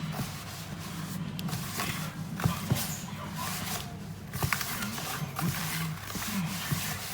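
Hands rubbing and mixing salty fried dough cake ingredients in a bowl, crushing and dissolving them: scattered light knocks and scrapes over a low steady hum.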